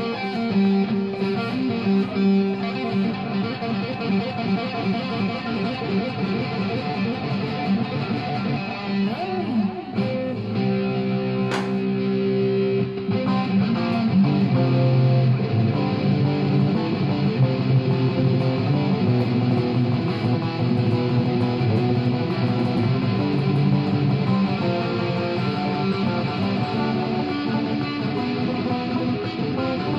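Electric guitar playing an improvised solo, with some long held notes partway through.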